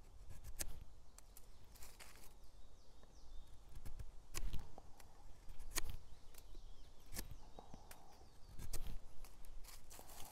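Hunting knife shaving a wooden stick: about a dozen short, irregular scraping snicks as the blade planes slivers off the wood.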